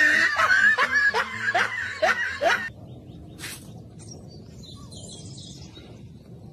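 A person laughing in a quick run of short 'ha' sounds, each dropping in pitch. The laughing stops sharply about two and a half seconds in and gives way to quiet background.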